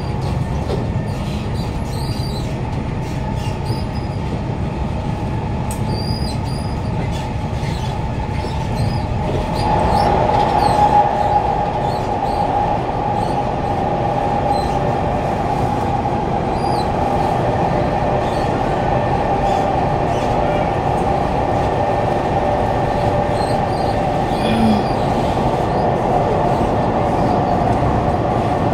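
Kawasaki Heavy Industries C151 metro train running on the line, heard from inside the carriage: a steady low rumble of wheels on track with scattered light clicks. About ten seconds in, a steady whine sets in and slowly falls in pitch.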